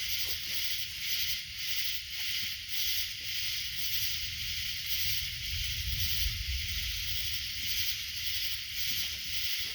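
Night insect chorus: a steady high-pitched pulsing drone, a few beats a second, over a low rumble that swells midway.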